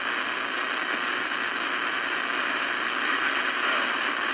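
Steady hiss of CB radio static from the receiver's speaker between transmissions.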